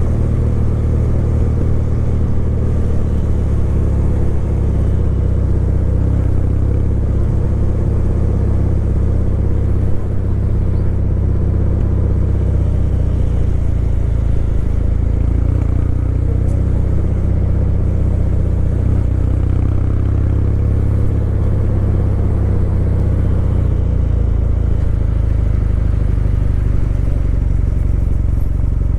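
Kawasaki W800's air-cooled parallel-twin engine running at a steady cruising pace while the bike is ridden, the engine note holding nearly constant pitch throughout.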